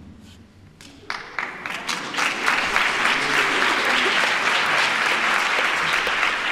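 Audience applause: scattered claps begin about a second in and quickly build into steady, dense applause.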